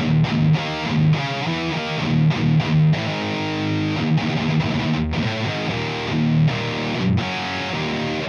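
Heavily distorted electric guitar playing a metal riff through the PRS Archon high-gain amp simulation in STL Tone Hub, with short chugging stops between phrases. It cuts off abruptly at the very end.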